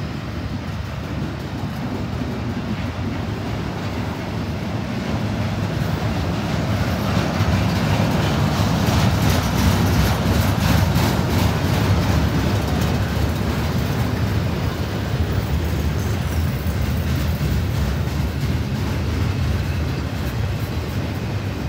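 EMD SD70ACe diesel-electric locomotive, its 16-cylinder two-stroke diesel running under a passing freight train: a steady low rumble that grows louder to a peak about halfway through and stays strong after. Quick wheel clicks over the rails come through around the loudest part.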